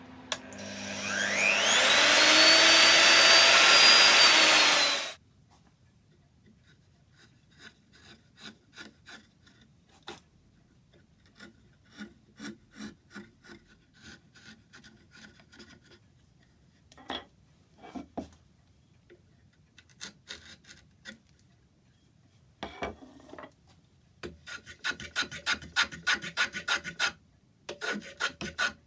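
A power tool spins up, rising in pitch, and runs for about four seconds before it stops abruptly. Then comes a series of hand-tool strokes on wood, rubbing and rasping: spaced at first, then a fast, louder run of strokes near the end.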